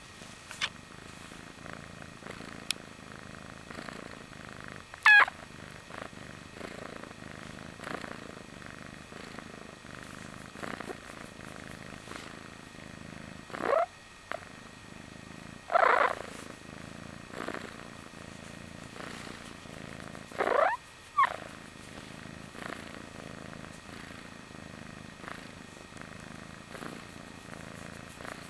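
Sleepy kitten purring steadily, broken by a few short, squeaky sliding-pitch noises: one about five seconds in, a pair past the middle, and a pair about two-thirds through.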